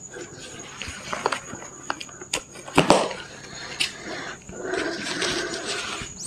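Rustling and handling sounds as clothes and packed items are moved around inside a bag, with scattered clicks, a louder knock about three seconds in, and a longer stretch of rustling in the second half.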